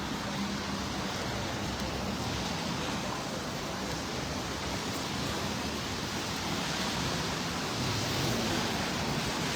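Steady wash of city street noise on wet streets, an even hiss with a slight swell near the end.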